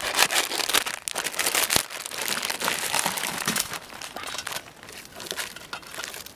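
Plastic instant-noodle wrappers and foil seasoning sachets crinkling as they are handled and cut open with scissors, loudest in the first two seconds and quieter after about four.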